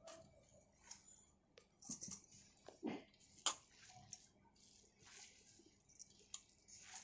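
Hand squeezing and tossing grated beetroot, cabbage and carrot in a stainless steel bowl: soft, irregular wet squishing and rustling, with a few sharp clicks around the middle, the loudest about three and a half seconds in.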